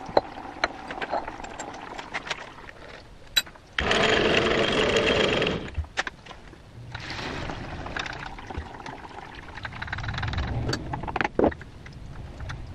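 Metal lathe being worked by hand: sharp clicks and knocks of its levers, handwheels and metal parts. About four seconds in comes a loud rushing hiss lasting just under two seconds, and later a lower hum of running machinery swells and fades.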